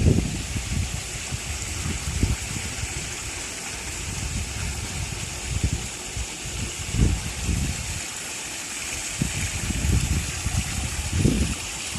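Steady rush of running water, with irregular low rumbles on the microphone that come and go.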